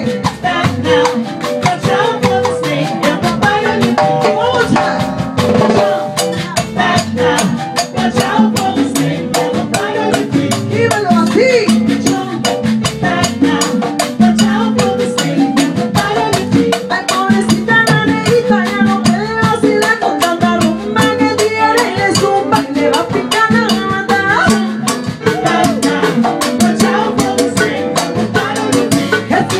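A live band playing upbeat Latin-style dance music, with drums and shaker-type percussion keeping a steady rhythm under pitched instruments.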